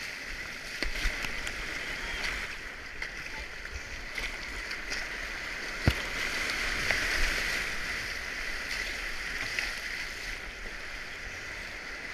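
Rushing whitewater of a river rapid, a steady hiss with splashing, and a single sharp knock about six seconds in.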